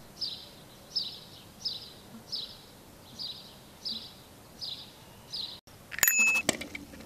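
A small bird calling eight times, one short high falling chirp about every 0.7 s. After a brief break, a handlebar dome bicycle bell is rung with a quick run of strikes, bright and loud.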